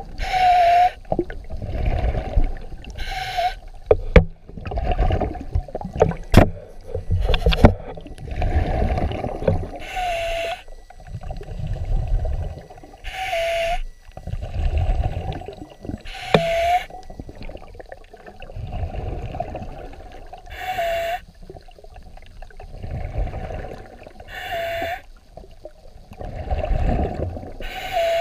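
A diver breathing, heard underwater: a short hissing inhalation about every three and a half seconds, alternating with longer rumbling, gurgling stretches of exhaled bubbles. There are a few sharp knocks between about four and eight seconds in.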